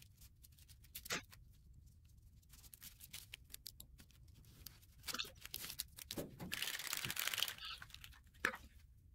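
Blue painter's masking tape being pulled off the roll, torn and pressed down onto sheet metal: faint crinkling and crackling, with one longer tearing stretch past the middle.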